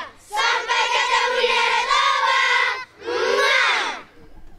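A group of children shouting together in a cheer: one long held shout, then a shorter one about three seconds in that falls in pitch.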